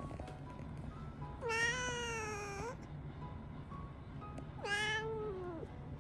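Brown tabby cat meowing twice: a long meow of over a second, then a shorter meow about four and a half seconds in that falls in pitch. Soft background music plays underneath.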